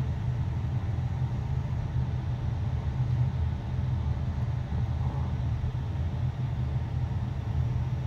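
Steady low rumble of background noise with no distinct events in it.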